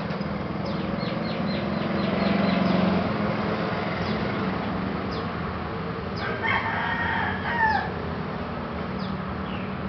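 A rooster crowing once about six seconds in, a call of a second and a half that ends in a falling note. Before it, small birds give a quick run of short chirps over a steady low hum.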